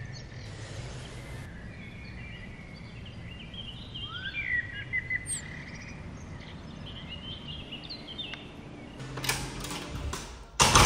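City night ambience: birds chirping in short rising whistled calls over a steady low hum of distant traffic. Near the end, loud handling noise as a door is pushed open.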